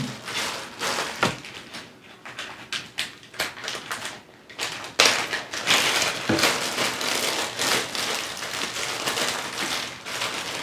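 Clear plastic packet of soft plastic lures crinkling and crackling as it is handled and pulled open, sparse at first and denser and louder from about halfway.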